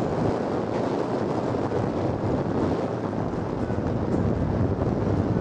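Steady rushing of wind and running noise heard from inside a cable car on an aerial tramway as it descends, with wind on the microphone.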